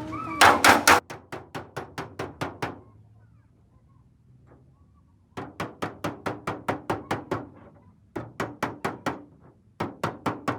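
Hammer tapping out a dent in a car hood's sheet metal: quick runs of sharp metallic taps, about five a second, broken by short pauses. The first run opens with a few heavier blows.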